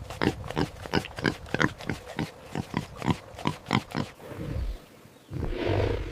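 Domestic pig grunting in a quick run of short grunts, about three or four a second; they fade out after about four seconds, and a louder, lower animal sound starts near the end.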